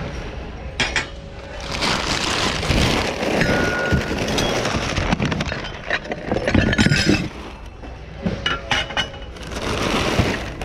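Hard secondhand items clinking and clattering as someone rummages through a bin of goods, a busy run of knocks and clinks.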